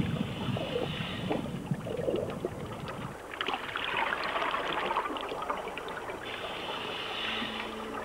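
Scuba diver breathing through a regulator underwater: a hiss of inhaled air, a bubbling exhalation from about three seconds in, and another inhalation hiss about six seconds in.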